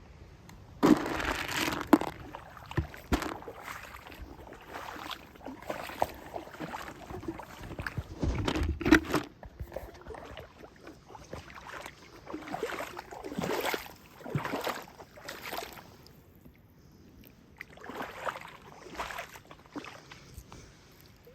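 Feet wading through shallow floodwater, splashing and sloshing irregularly with each step. The loudest splashes come about a second in, at two seconds, and around nine seconds, with a short lull near the end.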